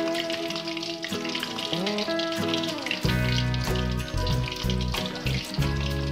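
Whole Indian mackerel sizzling as they fry in oil in a wok. Background music plays over it, and a heavy bass line comes in about three seconds in.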